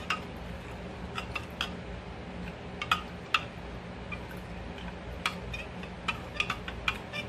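Metal spoon clinking against a glass bowl while stirring a cornstarch and soy sauce slurry: light, irregular clinks, the sharpest a little under 3 s and 3.4 s in and a quick cluster near the end, over a low steady hum.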